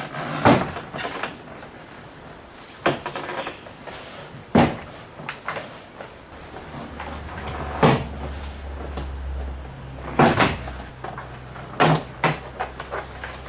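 Plastic retaining clips of a Holden Colorado's door trim panel snapping loose as the panel is pried and pulled off the door: about half a dozen sharp snaps and knocks a second or more apart, with rustling and handling of the panel between them. A low hum comes in about six seconds in and fades out about four seconds later.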